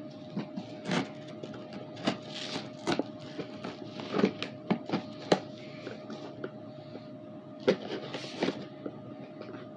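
A package being handled and opened: scattered sharp clicks and taps with brief rustles of packaging, over a faint steady hum.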